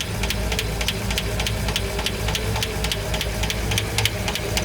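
V engine idling with one valve cover removed, its open valvetrain ticking in a steady rhythm of about four to five clicks a second over the engine hum. The owner takes the noise for a hydraulic lifter that no longer runs well on the camshaft.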